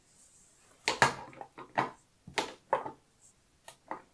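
Glass nail polish bottles clicking and knocking against a clear acrylic display rack as they are set back and picked out: a string of about eight short, irregular clicks.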